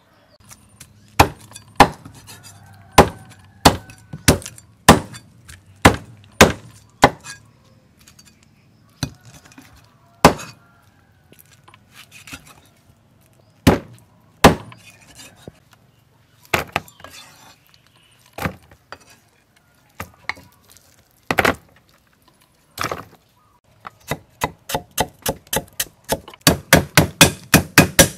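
Heavy cleaver striking a thick wooden chopping block, chopping shallot and lemongrass. The single sharp chops are spaced out at first, and near the end they turn into a fast run of about four to five a second.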